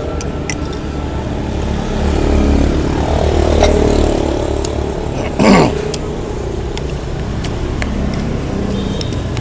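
Road traffic with motorbike engines, swelling as a vehicle passes, with an engine note falling in pitch about three seconds in. Spoons click against bowls, and a short loud sound that drops sharply in pitch comes about halfway through.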